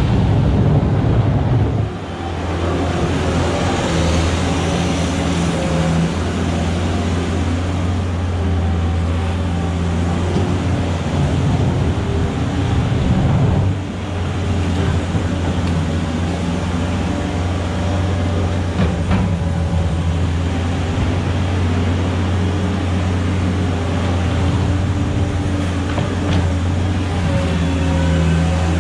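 A machine engine running steadily with a strong low hum, its sound shifting briefly about two seconds in and again around fourteen seconds in.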